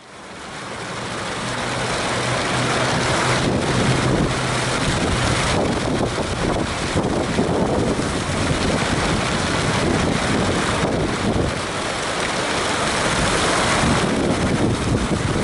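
Fountain jets splashing into a pool, with wind buffeting the microphone. The sound is a steady rushing noise that fades in over the first second or two.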